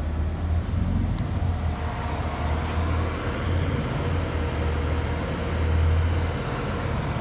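CEM LabWave 9000 microwave moisture analyzer running a drying cycle: a steady hum and cooling-fan noise under a low rumble that swells and eases.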